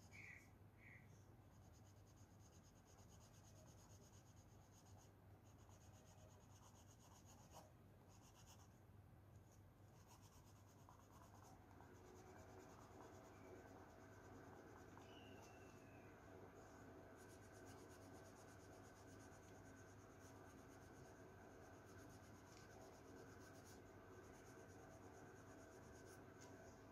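Faint scratching and rubbing of colour being laid onto paper, barely above room tone. A faint steady hum comes in about halfway.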